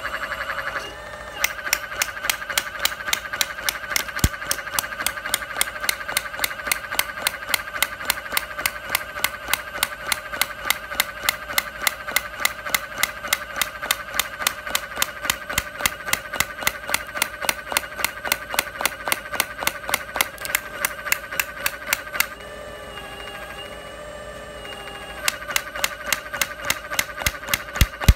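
Small hydraulic breaker hammering its chisel into a brick, a rapid even run of sharp blows at about three to four a second over a steady whine. The blows start about a second and a half in, pause for about three seconds with only the whine, and then resume near the end.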